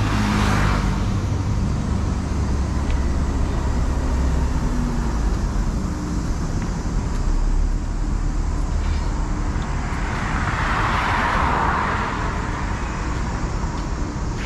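Street traffic: a steady rumble of motor vehicles, with one vehicle passing close and swelling then fading about ten seconds in.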